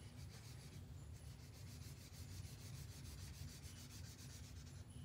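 Felt-tip marker scribbling on paper, colouring in a green treetop with quick back-and-forth strokes, several a second. Faint, starting about a second in and stopping near the end.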